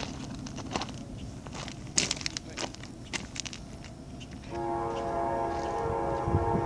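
A few sharp clicks and crackles at first, then, about four and a half seconds in, a diesel locomotive's multi-chime air horn starts up and blows steadily. Low train rumble builds beneath it near the end.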